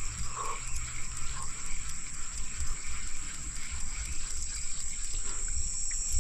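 Steady high-pitched insect chorus from the shoreline, with an irregular low rumble beneath it.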